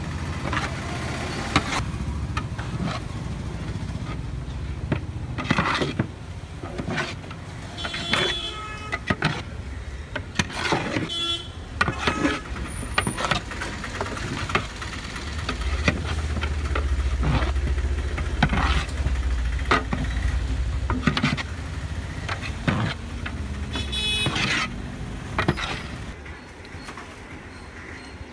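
Long-handled metal ladle scraping and clanking against a large metal pot in irregular strokes while marinated chicken pieces are stirred. Road traffic runs behind it, with a vehicle horn about eight seconds in and again near the end, and a low rumble of a passing vehicle in the middle.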